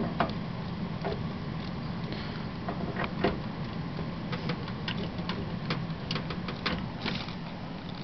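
Newly built desktop PC running, its case fans giving a steady hum, with scattered light clicks and taps from handling cables and hardware while a monitor is plugged in.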